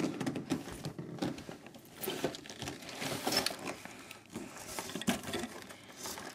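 Large cardboard bike box being handled and stood up: irregular rustling and scraping of cardboard with a few small knocks.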